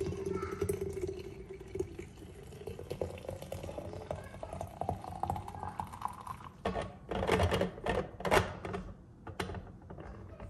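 Liquid pouring through a funnel into a dallah-style vacuum flask, the note climbing steadily as the flask fills. A burst of clattering knocks follows about two-thirds of the way through.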